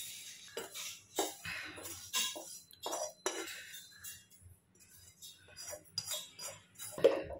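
A spatula scraping a roasted onion, coconut and tomato mixture out of a steel pan into a steel mixer-grinder jar: irregular scrapes and metallic clinks, with a brief ring from the steel.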